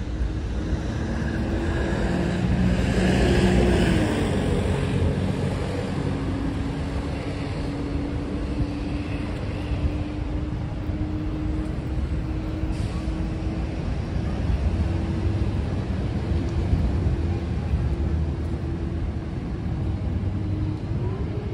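Road traffic on a city avenue: a steady rumble of cars and buses, with one vehicle passing loudest about three to four seconds in.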